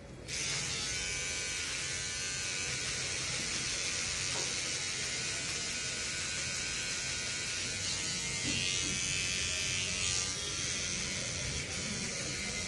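Electric hair clipper switched on right at the start and running with a steady buzz.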